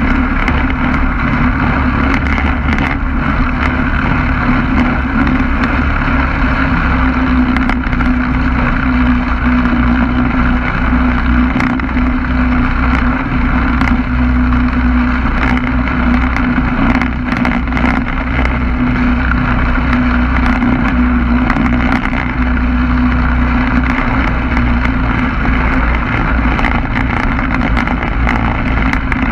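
Two-stroke engine of a Quicksilver MX ultralight running at steady power, with wind buffeting the microphone.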